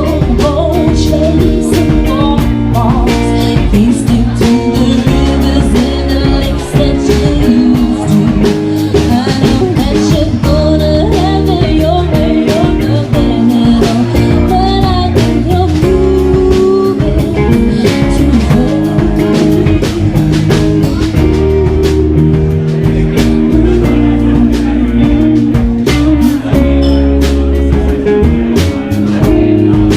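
A song playing loudly: a singer's melody over a steady drum beat, bass and guitar.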